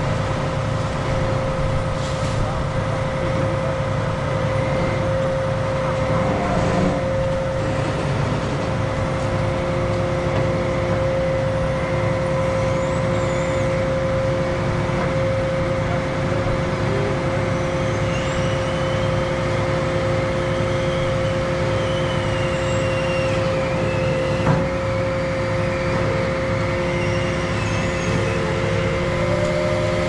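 Crane truck's engine running steadily with a constant hydraulic whine; a second, lower whine joins about a third of the way in as the grapple boom is worked. A single short knock sounds near the end.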